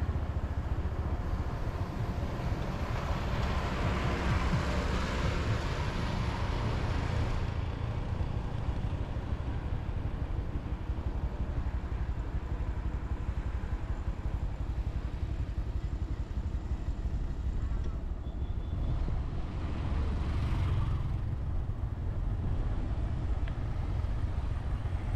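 A motorcycle on the move, with a steady low rumble of engine and wind. A broader rushing swell rises about two seconds in and fades around seven seconds, and a shorter one comes near the end.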